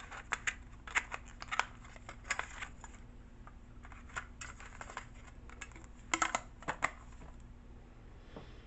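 Irregular small clicks and taps from handling a plastic golf gadget and a metal tin, with a cluster of sharper clicks about six seconds in.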